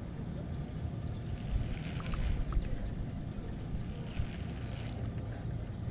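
Steady low rumble of wind on the microphone, with faint intermittent whirring from a baitcasting reel being wound in.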